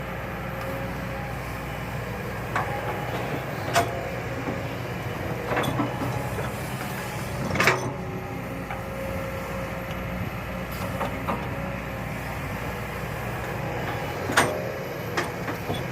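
Hydraulic excavator's diesel engine running steadily, broken by several sharp clanks and knocks of metal or rock. The loudest are about four, eight and fourteen seconds in.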